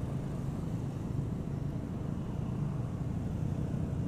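Steady low rumble of a motorcycle on the move, heard from the rider's helmet: the Yamaha Vega's small four-stroke engine running at cruising pace, mixed with wind on the microphone.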